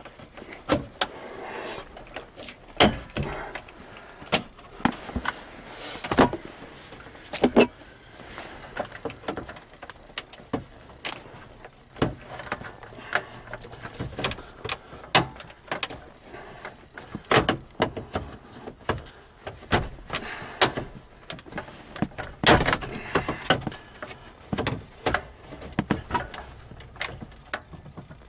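Plastic centre-dash trim of a 2004 Ford F-150 being worked loose by hand: irregular clicks, knocks and rattles of the panel and its retaining clips, with a few sharper snaps.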